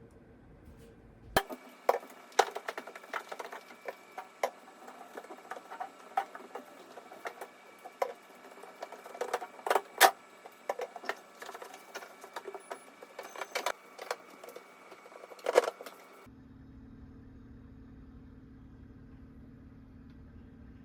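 Irregular clicks, knocks and clatter of small hard objects being handled for about fifteen seconds, stopping suddenly; a faint steady low hum remains afterwards.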